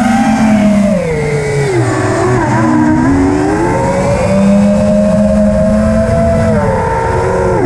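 FPV quadcopter's electric motors and propellers whining, the pitch sliding down and back up as the throttle changes, dipping about two seconds in, then climbing and holding before a sharp dip near the end, over a low rush of air.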